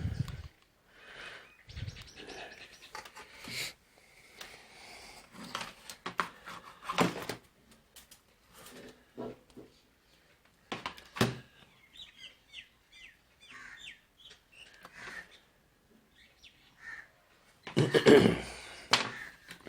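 Intermittent bird chirping mixed with scattered short clicks and knocks, with a louder clattering burst near the end.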